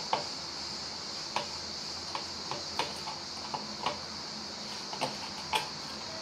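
Fingers greasing the inside of a metal non-stick bundt cake pan with butter, making light, irregular ticks and taps against the pan over a steady faint hiss.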